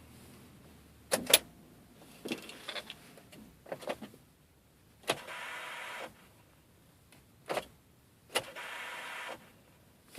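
A 2001 Oldsmobile Aurora's starting system, which will not start the 3.5L engine: a series of sharp clicks, and twice a click is followed by a steady electric whir lasting about a second that stops without the engine catching.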